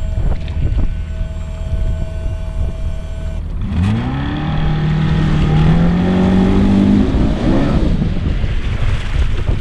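Bass boat's outboard motor throttling up about three and a half seconds in: its pitch climbs quickly, keeps rising slowly for a few seconds, then fades. Held musical tones come before it.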